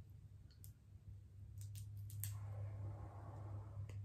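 Faint clicks and a soft crackle as cooked crab shell is picked apart by hand, over a low steady hum.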